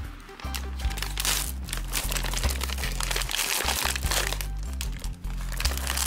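Plastic M&M's candy pouch crinkling and crackling as it is torn open and handled, over background music with a repeating low bass line.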